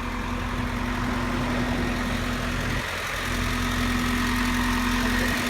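An engine idling, with a steady droning hum that cuts out briefly about three seconds in and again near the end.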